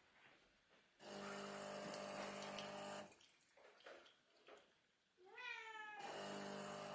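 A domestic cat meows once about five seconds in, its pitch rising and then falling. A steady hiss with a low hum runs for about two seconds near the start and again near the end.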